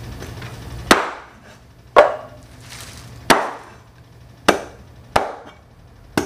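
Cleaver chopping a raw whole chicken on a cutting board: six sharp chops, roughly a second apart.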